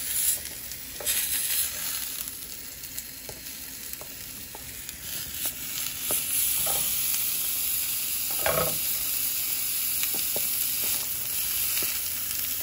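Meat-stuffed arayes breads sizzling on a hot ridged grill plate as fat from the ground-meat filling fries out into the bread. A few short taps come from the tongs turning them.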